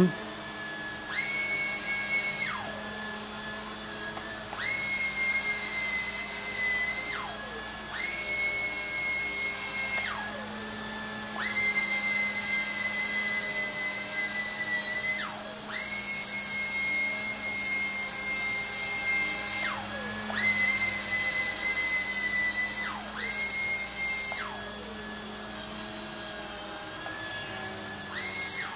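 The small electric motors of a JJRC Dusk toy RC helicopter whining in flight, the pitch jumping up and sliding back down about seven times as the throttle and banking inputs change, over a steady low hum.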